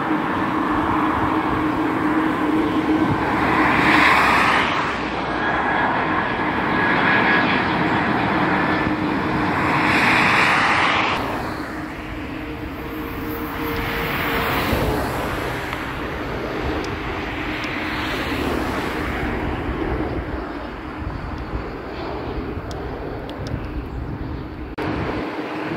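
Jet engines of an Airbus A320 airliner on approach to land: a steady rushing drone with a low steady tone, swelling and easing off several times. The sound drops suddenly in level about halfway through.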